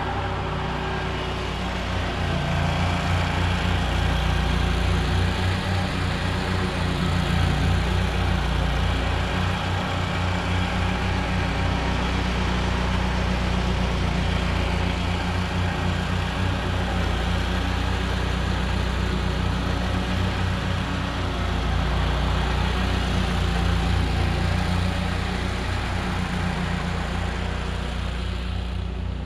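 A steady engine drone, swelling a little a few seconds in and again a little past twenty seconds, then easing off near the end.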